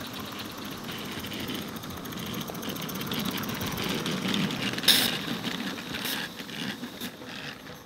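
A 16mm-scale live-steam Accucraft Cranmore Peckett 0-4-0 saddle tank running past with a train of small wagons. The sound builds towards the middle and then fades away, with one sharp click a little before five seconds in.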